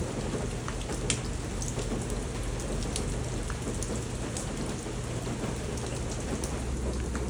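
Steady rain falling, with scattered drops ticking close by and a steady low rumble underneath.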